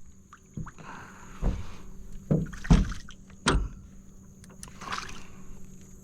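About five irregular knocks and thuds against a boat hull, with faint water movement in between, as a just-gigged flounder and the gig are handled on board.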